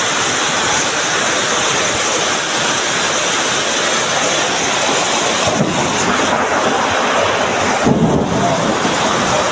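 Torrential rain and floodwater rushing across concrete make a loud, steady noise of water, with wind on the microphone. A brief bump comes near the end.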